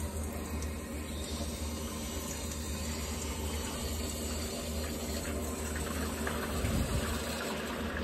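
Water hissing steadily through the copper supply line into a new 40-gallon A.O. Smith water heater tank as it fills after the supply is turned on.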